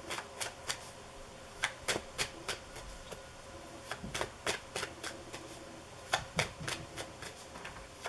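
Tarot deck being shuffled by hand, cards pulled from one hand into the other: a string of sharp, irregular card snaps and slaps, often two or three close together with short pauses between.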